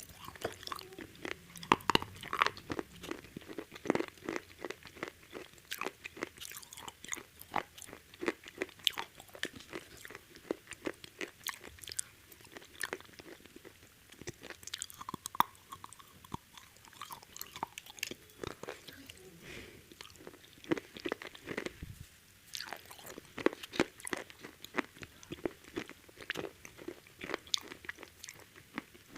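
A person biting into and chewing crispy KFC fried chicken, its coating crunching in many quick, irregular crackles.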